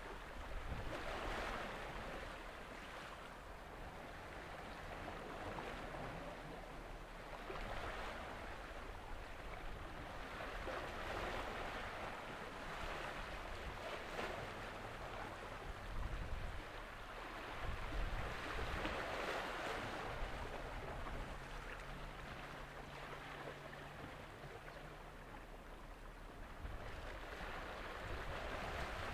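Small waves washing against the shore, swelling and fading every few seconds, with wind rumbling on the microphone in gusts and a faint low hum in the later part.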